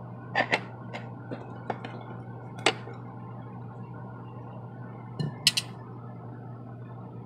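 Scattered light clinks and taps of small metal and glass parts being handled while a ceiling fan light fitting is taken apart, with a steady low hum underneath.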